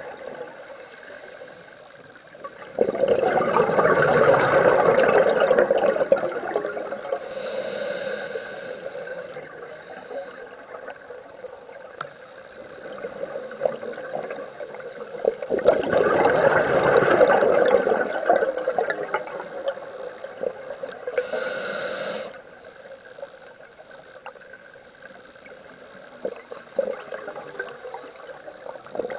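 A scuba diver breathing through a regulator underwater. Two long bursts of exhaled bubbles gurgle, each followed by a shorter, higher hiss of inhalation through the regulator.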